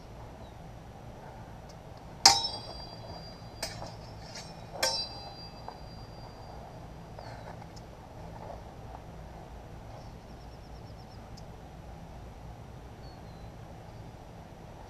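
Steel sparring swords clashing: a loud ringing blade strike about two seconds in, two lighter clicks, then a second ringing strike about half a second later.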